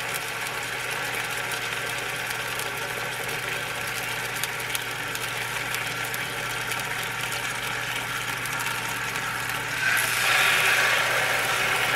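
Chicken breast sizzling in hot oil in a skillet, over a steady hum. About ten seconds in, the sizzle grows louder as a second breast is laid into the oil.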